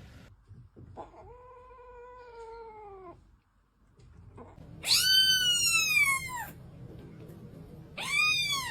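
Kittens meowing: three separate meows. The first is lower and drawn out, and the next two are higher, louder arching cries.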